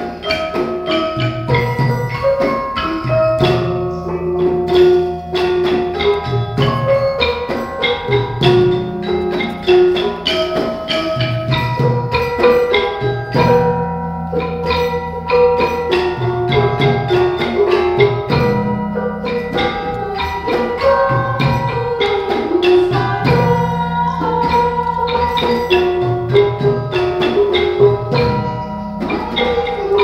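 Malay gamelan ensemble playing: bronze metallophones struck with mallets in a steady, ringing melody over a drum.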